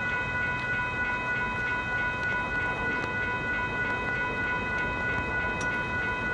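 Railroad grade-crossing warning bell ringing on and on in rapid, even strokes, a little over two a second, over the low rumble of a stopped train.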